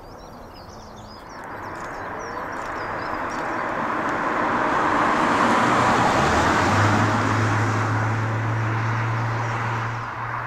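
Boeing 747-400's four jet engines on approach with gear down: a broad roar that swells to a peak about halfway through and eases off, with a steady low drone under it in the second half. Birds chirp over the start.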